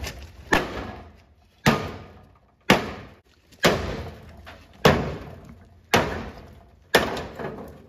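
Hammer pounding the rusted steel rear body and bumper of a 1973 Plymouth Scamp: seven hard metal-on-metal blows about one a second, each dying away quickly.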